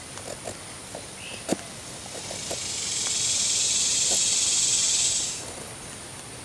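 An insect buzzing, a loud even high hiss that swells in about two and a half seconds in and dies away about three seconds later. Under it, small clicks of a knife carving a green stick.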